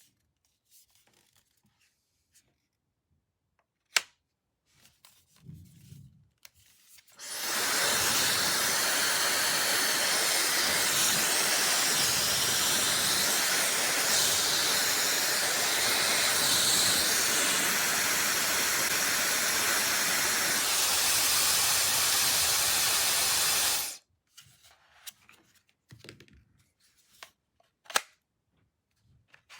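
Brushless-motor hair dryer switched on and blowing steadily, a loud even rush of air for about sixteen seconds, then cut off abruptly. Clicks and handling noises come before and after it.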